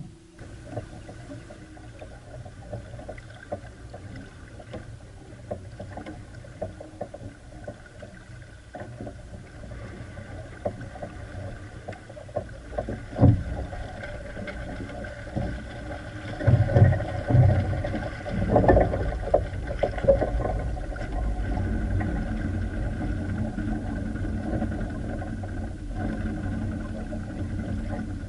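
Catalina 22 sailboat under way: water rushing and splashing along the hull, with a steady rumble and irregular low thumps that grow louder through the second half.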